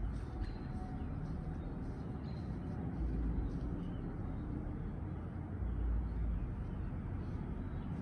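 Backyard outdoor ambience: a steady low rumble that swells briefly about three and six seconds in, with a few faint bird chirps.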